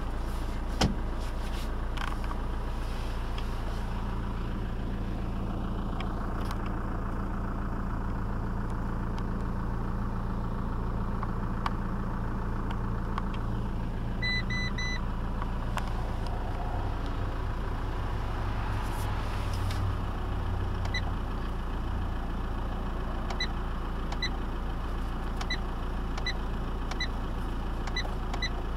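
2008 Fiat Doblo's 1.9 JTD Multijet four-cylinder turbo-diesel idling steadily, heard from inside the cabin. A few sharp clicks come early on, a short run of beeps comes about halfway, and a regular light ticking, a little over once a second, runs through the last third.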